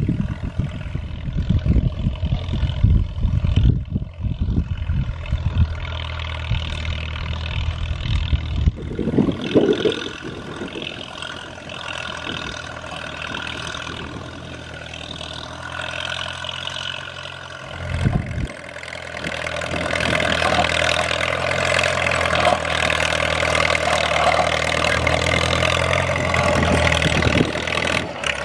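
1941 Caterpillar D2 crawler tractor's four-cylinder diesel engine running steadily while pulling a two-bottom plow. It grows louder and fuller about two-thirds of the way through as the tractor comes closer.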